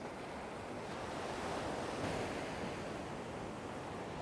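Ocean surf breaking and washing up the beach: a steady rush of water that swells a little about two seconds in.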